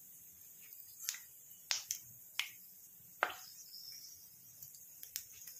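Cumin seeds and whole spices (cloves, black peppercorns, mace) sizzling in hot oil in a pan: a steady high hiss with several sharp pops and crackles scattered through it. This is the tempering (tadka) stage, the oil hot enough to fry the spices.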